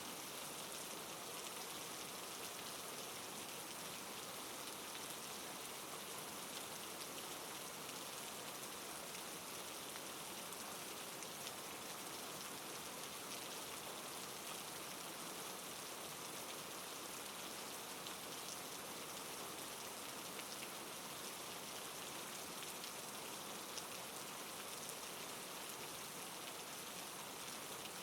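Steady rain falling, an even hiss of many small drops with faint patters, no thunder.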